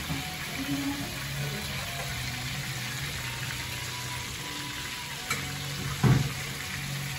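Beef slices and red onion rings sizzling in a frying pan, a steady hiss of frying. A short click about five seconds in, then a louder thump about a second later.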